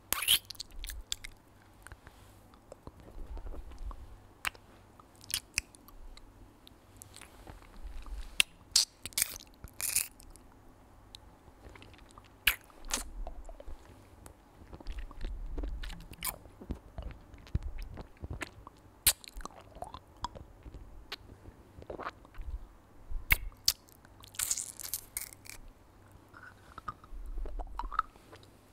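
Close-miked ASMR mouth sounds of a Chupa Chups lollipop being licked and sucked: irregular wet smacks and clicks of lips and tongue on the hard candy, with a few louder clusters.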